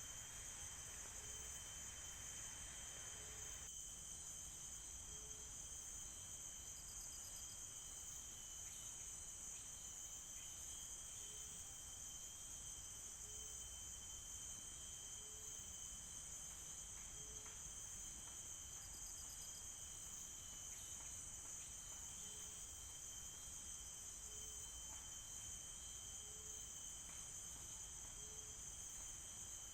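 Tropical forest insect chorus: crickets keep up a steady high-pitched buzzing, with a thin steady whine and short low calls repeating every second or two. A faint hiss drops away about four seconds in.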